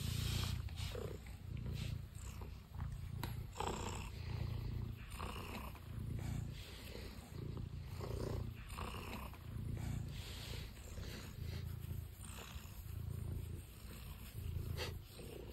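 Domestic cat purring under petting, a low rumble that swells and fades with each breath, about once every second and a half.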